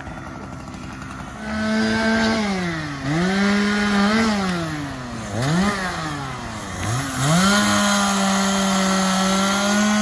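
Chainsaw running at high revs from about a second and a half in, its pitch dropping and climbing back several times as the throttle is eased and opened again, while cutting up a tree fallen across a road.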